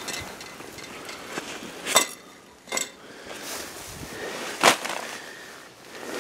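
Small hard objects clinking together three times, each clink with a brief ring: about two seconds in, again just under a second later, and the loudest near five seconds.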